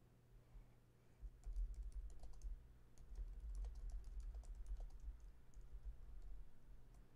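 Faint typing on a computer keyboard: a quick, uneven run of key clicks with dull thumps on the desk, starting about a second in and thinning out near the end, over a low steady hum.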